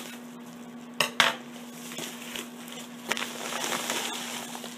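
Scissors snipping through a plastic poly mailer, two sharp snips about a second in, followed by the crinkle and rustle of plastic packaging as a plastic-bagged item is pulled out of the mailer.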